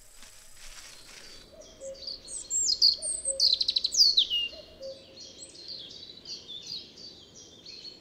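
European robin singing: high, varied phrases of thin whistles and sliding notes, with a fast trill in the middle. The song starts about a second and a half in, and a faint low note repeats behind it.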